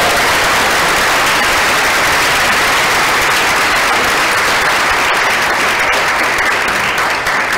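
Audience applauding steadily, the clapping beginning to thin out near the end.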